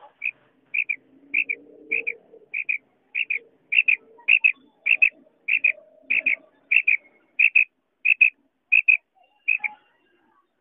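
Female quail calling: a steady series of sharp, high double notes, a little under two pairs a second, stopping near the end. It is the call that draws quail flying in to it.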